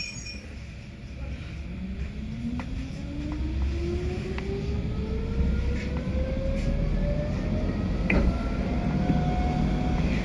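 Stuttgart Zacke rack railcar pulling away: its electric traction drive whines, rising steadily in pitch as it gathers speed, then levels off near the end. The running noise grows louder, with a few sharp clicks from the wheels over the track.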